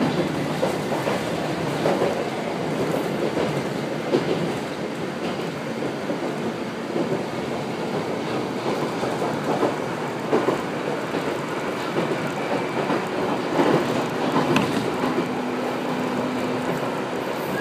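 Running noise heard inside the cabin of a former Keio 3000-series electric train: a steady rumble of wheels on rail, with an irregular click or knock every few seconds as the wheels cross rail joints. A faint low hum comes in near the end.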